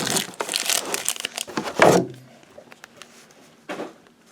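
Pokémon booster packs and their cardboard and plastic packaging being handled, crinkling and rustling, with a knock about two seconds in. After that it is mostly quiet, with one short rustle near the end.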